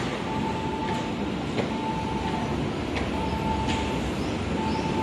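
Odakyu 60000-series MSE Romancecar electric train running into the platform, a steady rumble with a few sharp clicks. Over it a single-pitch beep sounds for most of a second and stops, repeating about every second and a half.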